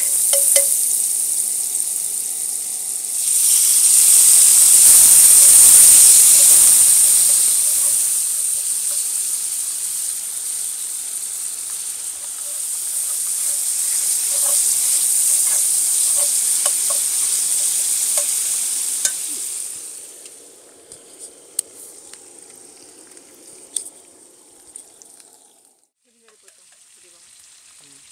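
Food frying and sizzling in a hot pan, a steady hiss that swells louder a few seconds in. About two-thirds of the way through the sizzle dies away, leaving quiet with a few light clicks.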